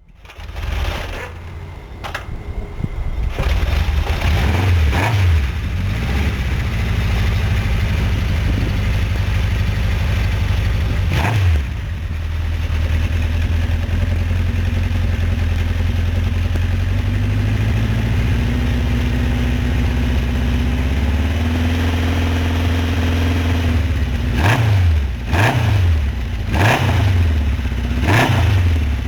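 Honda CB750 K0's air-cooled inline-four engine running steadily, its throttle blipped several times so the revs sweep up and fall back.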